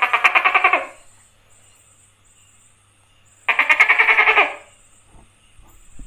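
Tokay gecko calling: a loud, rapid pulsed rattle of about a dozen pulses a second that ends just under a second in, then a second rattle like it about three and a half seconds in, lasting about a second.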